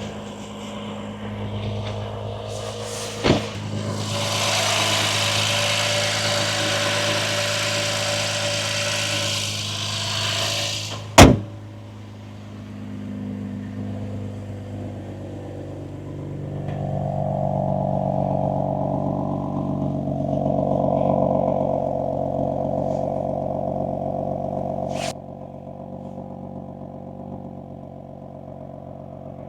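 BMW M4 (F82)'s twin-turbo straight-six running, with a steady rushing noise over the engine for the first ten seconds and a sharp, loud click about eleven seconds in. After that the engine note rises and falls as the car accelerates, and it drops quieter after another click near the end.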